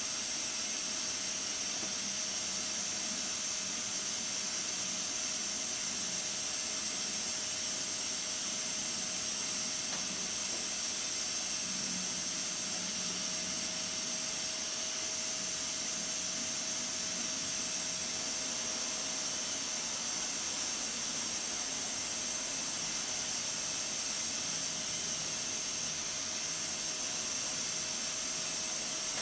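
Aluminium pressure cooker hissing steadily as steam escapes from its pressure valve while the pot is held at cooking pressure, with a faint steady tone running through the hiss.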